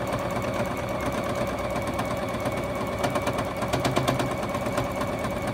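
Juki HZL-F600 domestic sewing machine running at a steady speed while free-motion quilting through a quilt sandwich: a motor hum with a rapid, even ticking of the needle strokes.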